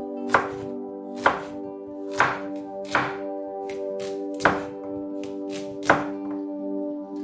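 Kitchen knife slicing carrots into rounds on a wooden cutting board, each cut ending in a sharp knock of the blade on the board: six cuts, roughly a second apart, over background music.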